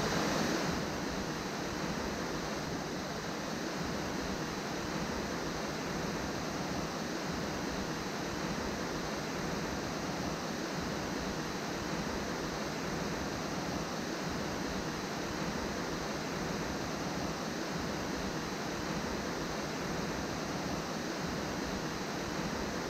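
Waterfall pouring into a rocky gully: a steady, unbroken rush of falling water.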